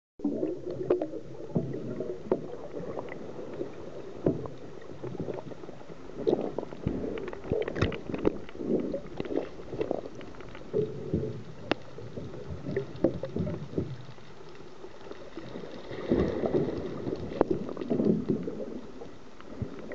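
Muffled churning and bubbling of water heard through a camera held underwater, with scattered sharp clicks and knocks throughout.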